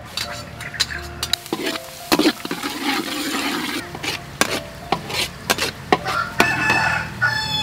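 Metal spatula scraping and clinking against a steel wok as chopped garlic fries in hot oil, with a sizzle under the strokes.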